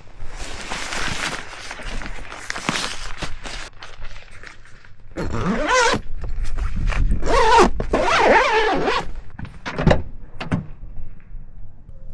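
A tent zipper being drawn in strokes, with fabric rustling. The longest and loudest rasping pulls come about halfway through, followed by a few knocks.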